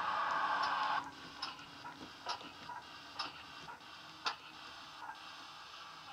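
Hornby Castle Class model steam locomotive with a Loksound 5 DCC sound decoder running slowly. A steady hiss from its speaker cuts off about a second in, then light, unevenly spaced clicks and ticks follow.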